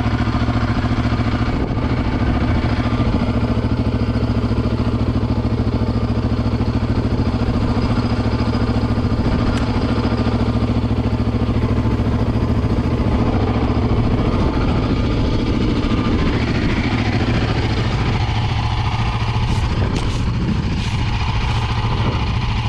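A 2008 Yamaha Raptor 700 ATV's single-cylinder four-stroke engine idling steadily, with a few light clicks near the end.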